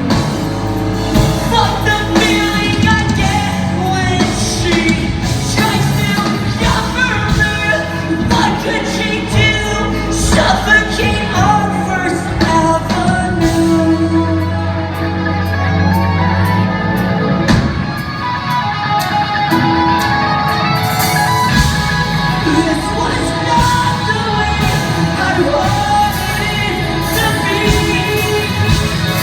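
Live rock band playing a song with a singer's high, strained vocals, heard as loud amplified music echoing in a concert hall.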